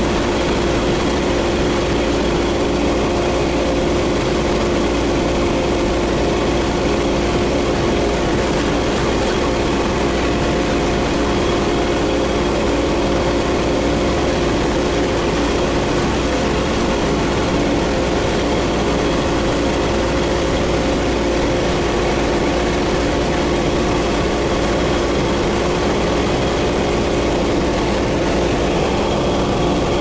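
Outboard motors running steadily at cruising speed on a fast-moving motorboat, with the rush of the churning wake and wind over the water.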